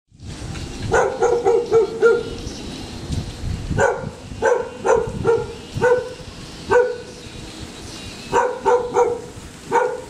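A dog barking in quick runs of several barks, with short pauses between the runs.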